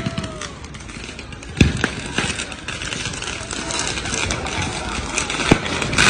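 Fireworks going off in a street: sharp bangs about a second and a half in, a weaker one shortly after, and another near the end, over a constant din of voices.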